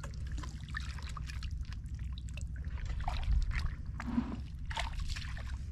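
Shallow muddy water splashing and trickling as hands rummage in the mud and booted feet wade through it, with many small scattered splashes and drips.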